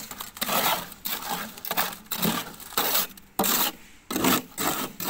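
A trowel scraping wet concrete out of a wheelbarrow's tray: a gritty rasping scrape repeated in strokes roughly every half second to second.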